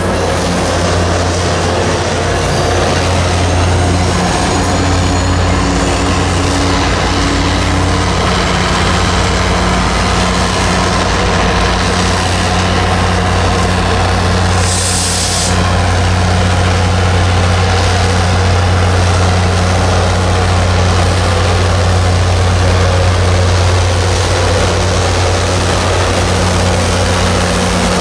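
MARC commuter train's diesel locomotive engine running with a steady deep drone, mixed with rumble from the train. A short hiss of air about halfway through.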